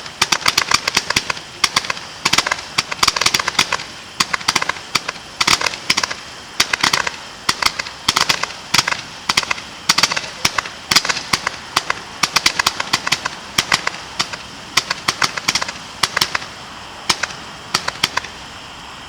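Firework shot cake firing a rapid run of sharp bangs and crackles in clusters, which stops about a second before the end.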